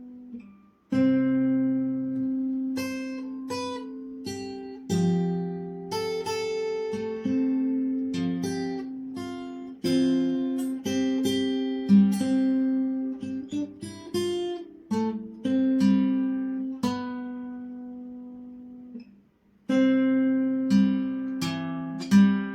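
Acoustic guitar played fingerstyle: a slow melody of plucked notes that ring and fade over a bass line. The playing pauses briefly about a second in and again near the end before resuming.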